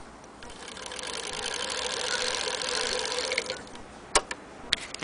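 Antique Singer 15K80 hand-crank sewing machine running at speed, a rapid, even mechanical clatter that builds up and then stops after about three seconds. A few sharp clicks follow near the end.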